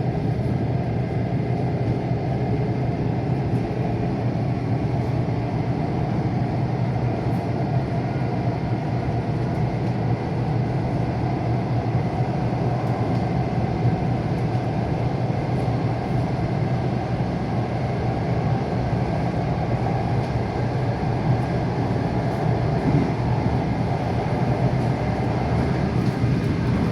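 Wheels of a moving electric commuter train clattering over the rails: a steady rumble with faint repeated clicks.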